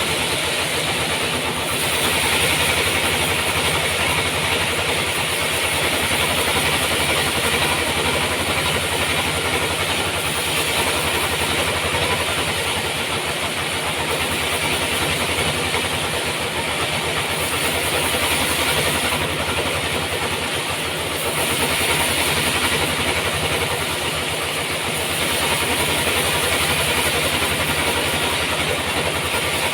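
Sawmill engine running steadily, with a hiss that swells and fades every few seconds.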